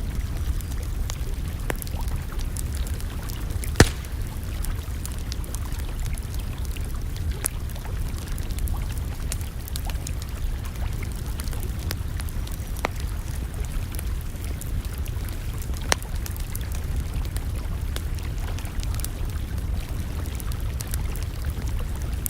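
Campfire crackling with scattered sharp pops, the loudest about 4 s in and another near 16 s, over a steady low rumble.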